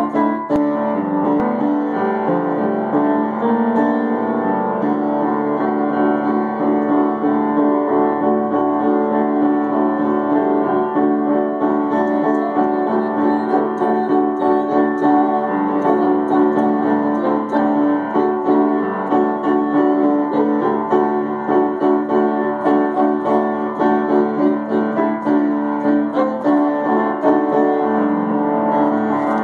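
Piano music playing steadily, with many sustained notes layered together.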